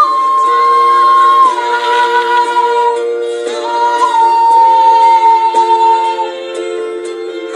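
An ocarina playing a slow melody in long held, nearly pure notes, stepping down in pitch, with a short break about three seconds in. Beneath it, sustained lower chords of a backing accompaniment.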